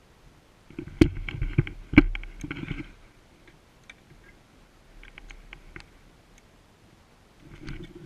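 Close rustling of clothing and gear against a body-worn GoPro, with two sharp clicks about a second apart near the start and a few fainter clicks later.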